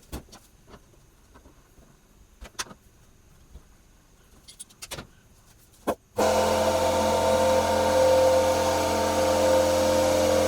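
A few light clicks and knocks, then about six seconds in a small electric air compressor starts suddenly and runs steadily with a loud hum.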